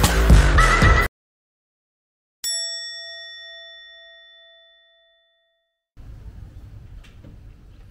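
A single bell-like chime, struck once and left to ring, fading away over about two and a half seconds. Background music cuts off abruptly just before it, and faint outdoor ambience comes in near the end.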